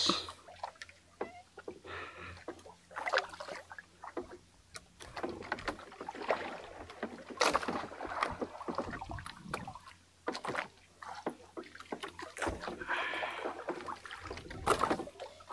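Water sloshing and splashing against a small boat, with irregular knocks and clicks of fishing gear being handled aboard.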